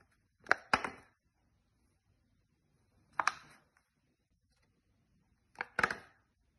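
Light taps of a small paper cube landing and tumbling on a hard tabletop, in three short clusters of two taps each, about two and a half seconds apart.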